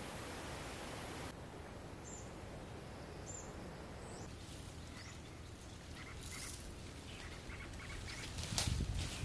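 Rural outdoor ambience: a steady hiss, with a few faint high bird chirps. Near the end come a click and a couple of low thumps.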